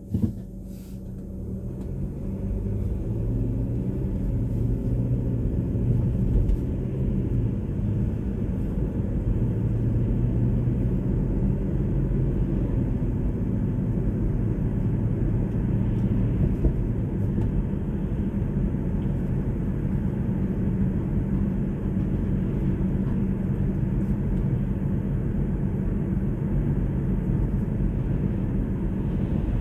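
Car driving: steady engine and road rumble that grows louder over the first few seconds and then holds steady, after a short knock at the very start.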